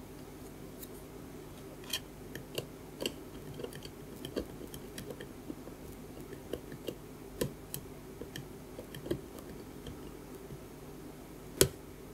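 A pointed metal tool scraping and picking hardened glue off a small circuit board: irregular small scratches and clicks, the sharpest click near the end, over a steady low hum.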